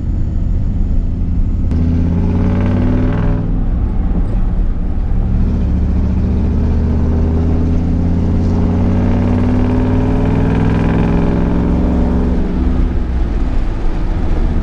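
Ford pickup truck's engine heard from inside the cab while driving, its pitch climbing twice as it pulls and easing off about twelve seconds in, over steady road noise.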